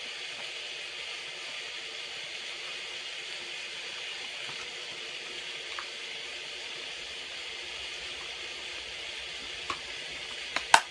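Steady hiss of rain falling outside. Near the end come a few sharp clicks, the loudest just before it ends.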